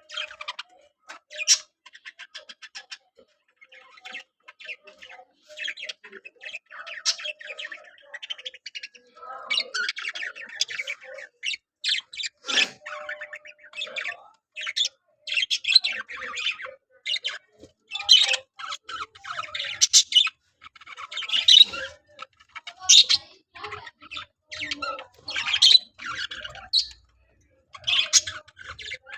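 Budgerigars chirping and squawking in rapid, near-continuous chatter of short calls.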